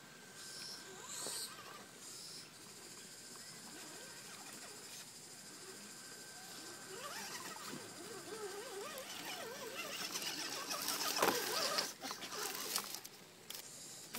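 Radio-controlled rock crawler truck driving through a shallow rocky stream, its motor and drivetrain noise growing louder as it comes close, with a sharp knock about eleven seconds in. Birds chirp in the first couple of seconds.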